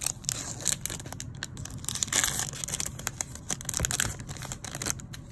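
Foil wrapper of a Topps baseball card pack crinkling as it is torn open and pulled off the cards: an irregular run of rustles and crackles, loudest about two seconds in.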